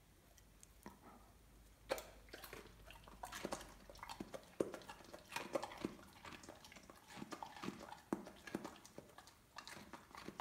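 A Weimaraner crunching a raw carrot stick, with irregular crisp crunches starting about two seconds in.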